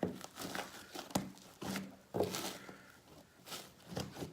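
Hands working a big batch of fluffy shaving-cream slime, which gives irregular squishy, crackling bursts several times a second apart.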